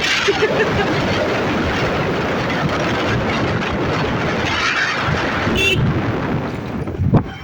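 A loud, steady rush of wind buffeting the microphone on a moving vehicle, with road and engine noise beneath it. It drops away suddenly about seven seconds in.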